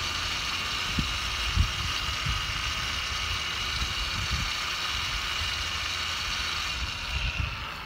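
DeWalt rotary polisher driving a small polishing pad through a flex-shaft attachment, running with a steady whine as it spreads polish over a car wheel. The whine dies away just before the end.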